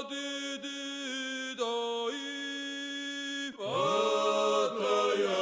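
Background music: unaccompanied Georgian polyphonic choral singing, long held chords that shift to new notes a few times.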